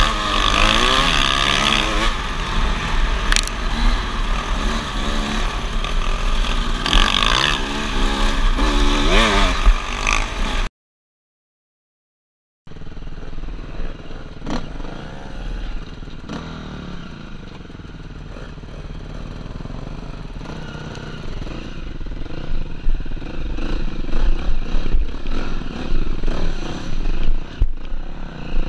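Off-road dirt bike engine running and revving, its pitch rising and falling with the throttle over a sandy track, with wind noise on the microphone. The sound cuts out for about two seconds in the middle, then returns as quieter motorcycle engine sound that grows louder again near the end.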